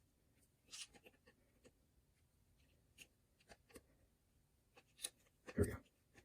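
Hands handling and fitting plastic blaster parts: faint scattered clicks and rustles, with a louder short burst near the end.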